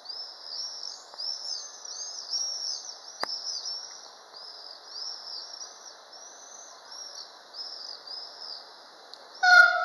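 Birds chirp in quick repeated calls over a steady background hiss. Near the end, a train horn sounds one loud single-pitched blast.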